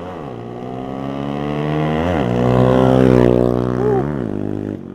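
A motorcycle engine ridden along the road, getting louder to its loudest about three seconds in. Its note twice dips and climbs again, as in a gear change, then drops away abruptly just before the end.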